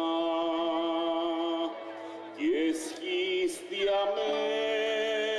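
Male voice singing a Greek song live to acoustic guitar accompaniment. He holds a long note with a slight vibrato, then starts a new line about three seconds in.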